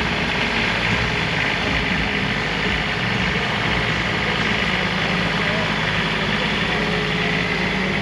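Car engines idling steadily with crowd chatter.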